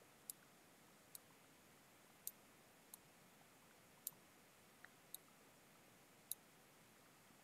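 A computer mouse clicking about eight times at uneven intervals: short, sharp, light clicks over a faint steady hiss.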